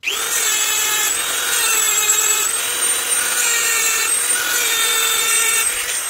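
Dremel rotary tool running at high speed, grinding the lock indents of a stainless-steel balisong trainer: a steady high whine whose pitch shifts slightly about every second. Near the end it is switched off and winds down with a falling whine.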